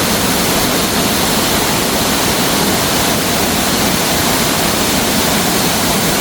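Waterfall rushing close by: a loud, steady, even roar of falling water.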